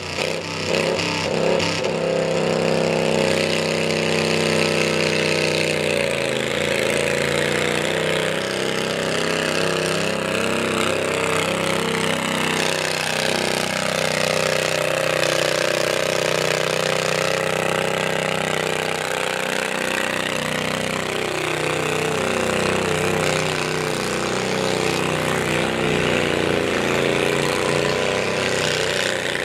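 Garden tractor with a 25 hp twin-cylinder engine running at full throttle while pulling a weight-transfer sled. The engine note holds loud and steady, wavering in pitch as the engine works against the load.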